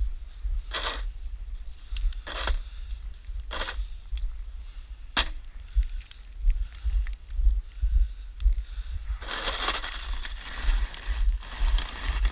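Snow shovel scraping and pushing snow in four short strokes, then a longer stretch of scraping near the end, over a low rumble of wind on the microphone.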